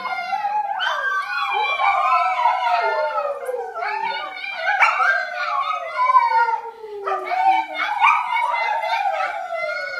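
People and a pet dog howling together: several long howls overlap, each sliding slowly down in pitch, rising again in three waves.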